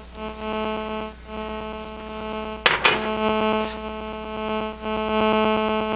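Steady electrical hum with a buzzy stack of overtones, with a single sharp click a little under three seconds in.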